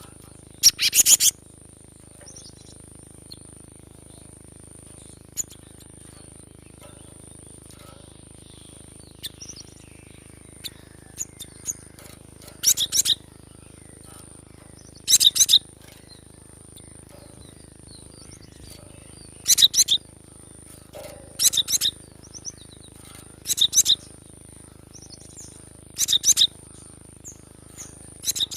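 Cinereous tit (gelatik batu) calling: about eight short bursts of quick, sharp high notes, each about half a second long and a few seconds apart. A steady thin high-pitched tone runs underneath.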